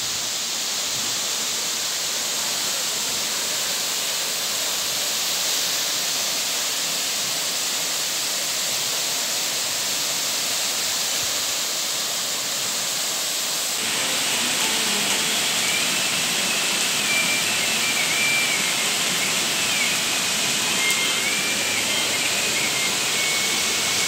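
Steady rush of a rain-swollen waterfall pouring off a rock cliff. About fourteen seconds in the sound changes abruptly to a slightly louder, closer torrent, with a faint wavering high tone over it.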